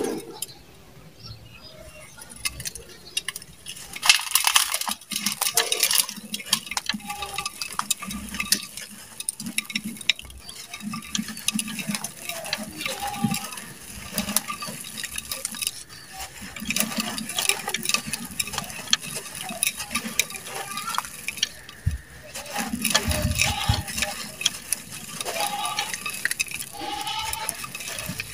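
Dry sand-cement blocks crunching and crumbling in the hands, with gritty sand pouring and pattering into a clay pot in uneven, crackly bursts, heaviest in two spells.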